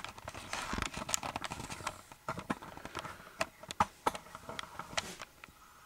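Unboxing handling noise: soft rustling of packaging with scattered light clicks and taps. It is busiest in the first couple of seconds and thins out toward the end.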